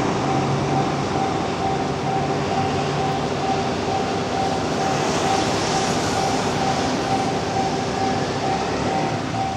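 Japanese level-crossing warning bell ringing in a rapid, even repeat while a JR Nambu Line electric commuter train passes over the crossing. There is a brief rise in hiss about five seconds in.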